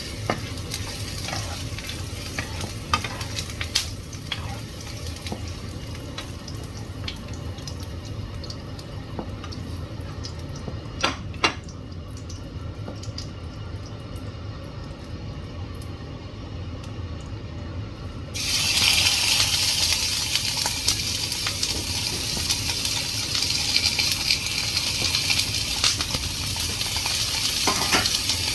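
Kitchen cooking sounds: scattered clicks of utensils against cookware over a low steady hum, then about 18 seconds in a sudden loud sizzling as food starts frying in hot oil, which keeps going.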